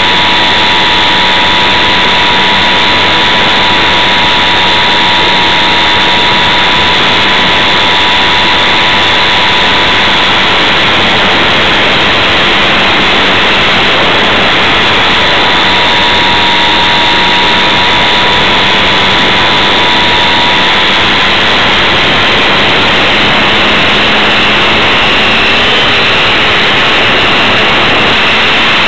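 Radio-controlled model airplane's motor and propeller running steadily in flight, heard from on board: a high, nearly constant whine under heavy wind rush, the pitch dipping only slightly now and then.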